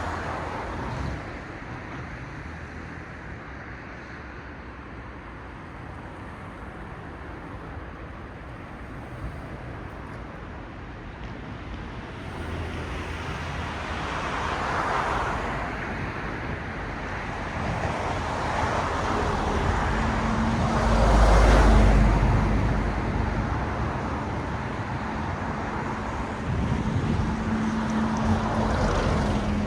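Cars passing on a road: tyre and engine noise that is low for the first third, then swells and fades with several passing vehicles. The loudest pass comes about two-thirds through, with a deep rumble, and a steady engine hum is heard around it and again near the end.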